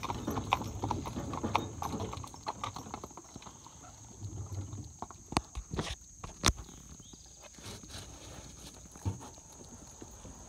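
Hooves of a pair of Haflinger horses clip-clopping at a walk on a paved lane. The steady beat thins out after about three seconds to a few scattered knocks as the team slows.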